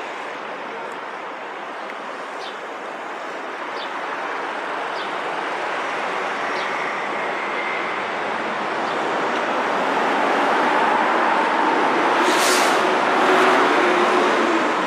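Street traffic noise that swells louder in the second half as vehicles pass close, with a short sharp burst of noise about twelve seconds in.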